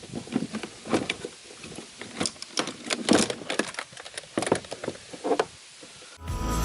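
Scattered plastic clicks and knocks from handling a kayak console and unfastening its latch clips. Music starts near the end.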